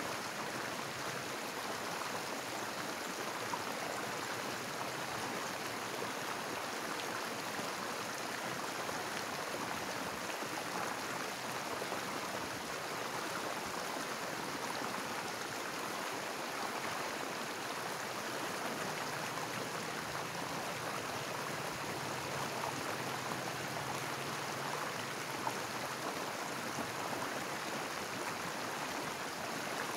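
A small river pouring over a low step in its bed into churning whitewater: a steady rush of flowing water.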